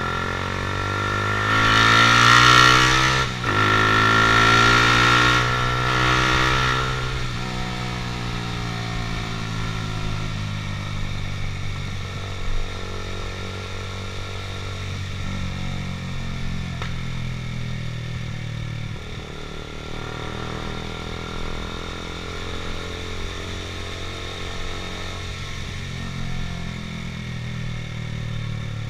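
Honda CBR150R's single-cylinder engine under way: it revs up with rising pitch, dips briefly about three seconds in as a gear changes, climbs again, then runs at a steady cruising speed. A louder rushing noise sits over the first several seconds.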